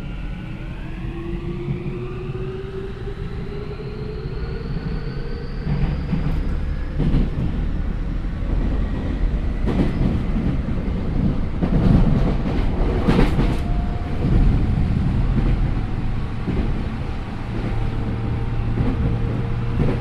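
Yokohama Minatomirai Railway Y500 series electric train accelerating: its Hitachi IGBT VVVF inverter whines in several tones that rise in pitch over the first five or six seconds. The traction motors hum under steady running noise from the wheels and rails, which grows louder about ten to fourteen seconds in.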